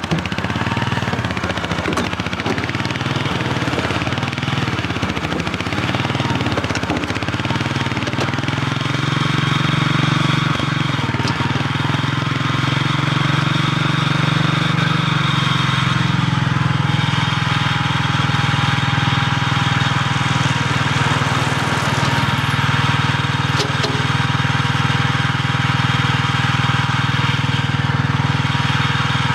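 Small stand-behind loader's engine running steadily, getting a little louder about eight seconds in as its lift arms are raised. A thin steady whine sits above it in the second half.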